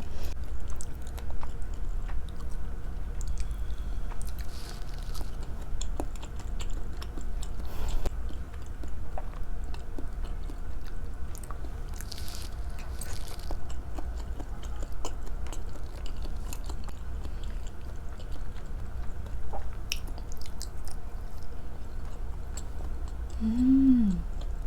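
Close-miked mouth sounds of someone chewing and biting food, with small wet clicks throughout, and a short hummed "mm" near the end.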